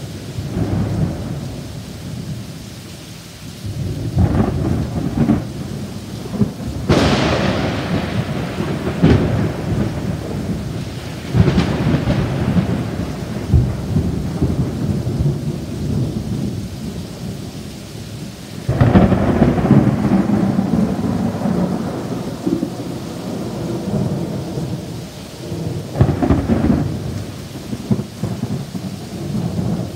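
Thunderstorm: rain falling steadily while thunder cracks and rumbles again and again. The sharpest cracks come about seven and eleven seconds in, and a long rumble starts a little before twenty seconds in.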